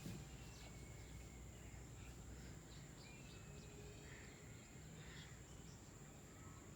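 Near silence: faint steady background noise with a thin high whine, and a few faint short chirps scattered through it.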